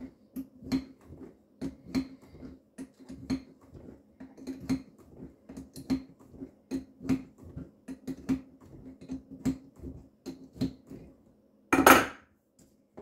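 Metal-on-metal clicking, about two sharp clicks a second, as channel-lock pliers work a water supply-line fitting loose under a kitchen sink. A louder, rattling burst comes about a second before the end.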